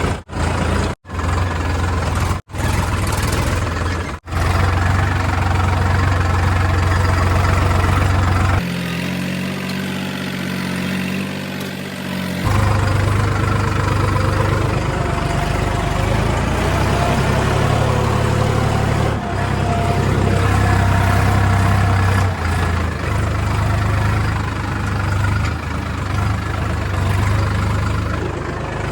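Motorcycle engine running steadily during a ride. The sound cuts out briefly several times in the first few seconds, and the engine note changes for about four seconds a little before the middle.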